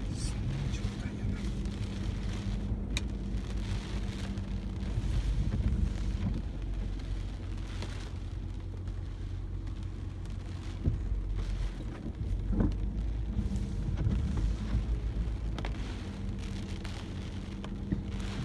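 Typhoon wind and driving rain, gusting and rumbling on the microphone with the wind rising and easing, and a few sharp knocks from something being struck or rattled by the wind.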